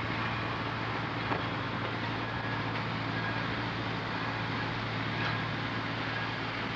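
Passenger coaches of a train rolling steadily past: a continuous rumble of wheels on rail, with a couple of faint clicks.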